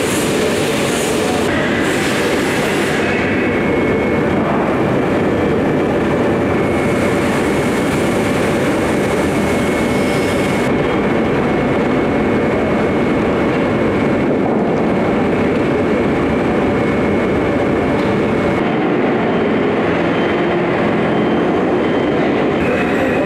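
Loud, steady machinery noise of a steel foundry's casting line while molten steel is poured from a ladle into moulds, with a faint steady high whine over it.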